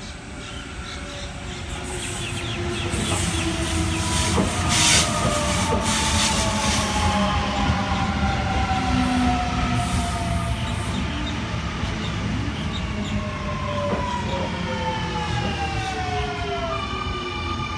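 Sydney Trains Millennium (M set) double-deck electric train running in along the platform and braking. Its traction motors whine in several tones that fall steadily in pitch as it slows, over a rumble of wheels on rail. Near the end the whine jumps to a new set of steady tones.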